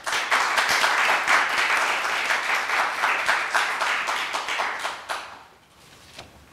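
Audience applauding for about five seconds, then fading out.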